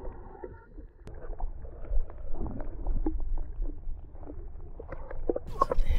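Muffled water sloshing with scattered knocks, picked up by a camera held under the surface beside a muskie in a landing net. Near the end the sound turns clear, with sharper splashes and clicks.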